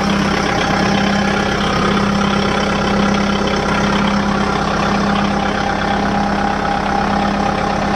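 Kubota MU5501 tractor's four-cylinder diesel engine idling steadily, with an even low hum and no change in speed.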